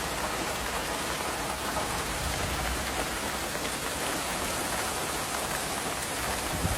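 Heavy downpour: a steady, even hiss of pouring rain.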